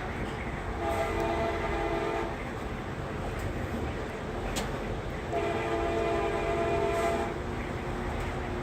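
Passenger train horn sounding two blasts, each a chord of several notes, the second a little longer, over the steady rumble of the rolling train.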